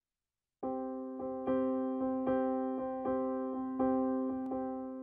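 Background music: a keyboard playing held chords, starting about half a second in, with a new note struck roughly every three-quarters of a second.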